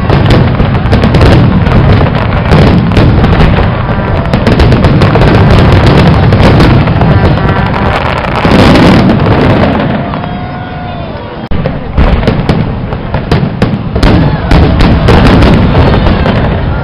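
Fireworks display: many aerial shells bursting in rapid, overlapping bangs. The barrage eases off briefly about two-thirds through, then a sharp bang sets off a fresh volley.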